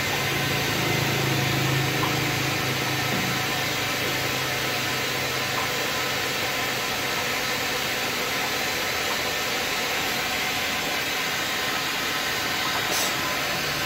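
Plastering machine's pump running steadily with a constant low hum, pushing water and a cleaning sponge through the hose to flush out leftover mortar.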